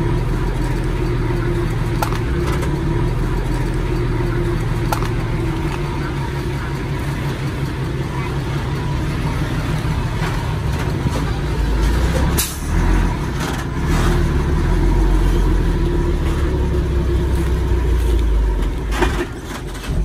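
Heavy diesel earthmoving machinery running steadily under load, with occasional sharp metallic clanks, the loudest about twelve seconds in. The low engine rumble grows heavier from about twelve seconds in until a second before the end.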